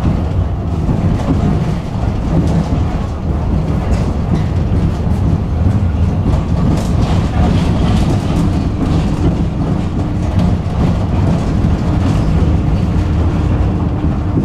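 Tram running along the track: a steady low rumble of wheels on rails with scattered clicks and knocks. A faint steady hum joins the rumble about halfway through.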